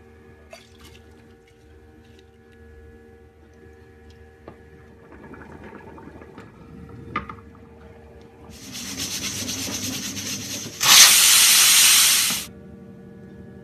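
Pressure cooker letting off steam: a softer rushing sound starts about two-thirds of the way in, then a loud, even hiss of steam lasts about a second and a half and cuts off sharply.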